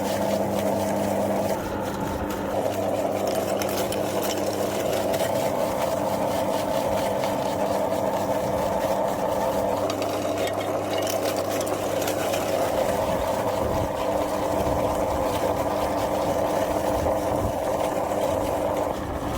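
Electric meat grinder's motor running with a steady hum as it grinds ice cream, with a gritty crackle over the hum.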